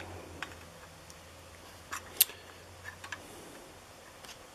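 A few light clicks and taps of a sheet-brass bracket being handled against a carbon-fibre engine shroud, the sharpest about two seconds in, over a faint low hum that stops about three seconds in.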